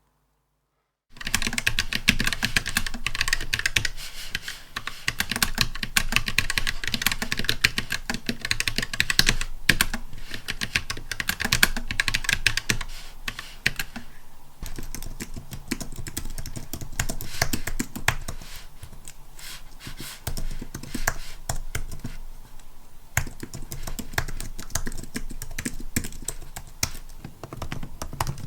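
Continuous fast typing on a Keychron K3 low-profile mechanical keyboard with brown tactile switches: a dense run of key clacks. It starts about a second in, after a moment of silence.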